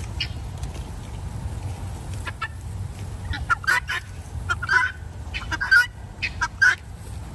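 Farm fowl, guinea fowl and young turkeys, calling in many short, harsh bursts that come thickest in the second half, agitated as the birds square up to fight. A steady low rumble runs underneath.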